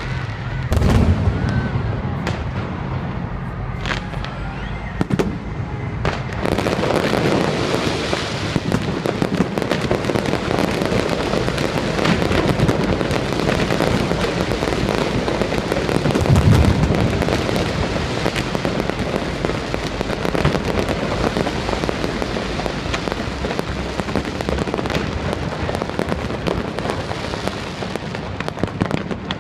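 Fireworks display: scattered bangs and low booms of bursting shells, then from about six seconds in a dense, continuous crackling of many bursts at once, with a heavy boom about sixteen seconds in.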